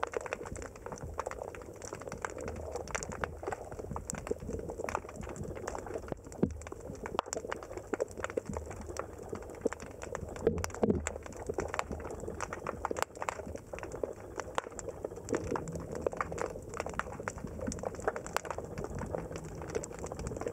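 Underwater ambience: a dense, irregular crackle of clicks over a low rumble, with a louder cluster of clicks about halfway through.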